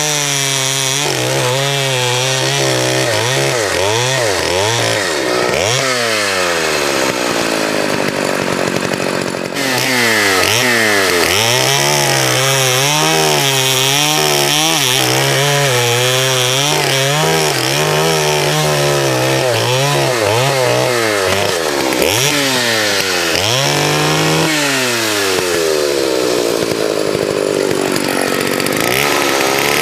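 Vintage two-stroke chainsaw cutting firewood, its engine speed repeatedly sagging under load in the cut and climbing back up.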